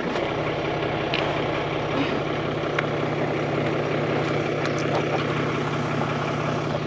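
Toyota LandCruiser 300 Series twin-turbo V6 diesel idling steadily, heard close behind the vehicle. A few light clicks come from the trailer plug and the safety chains as they are handled at the towbar.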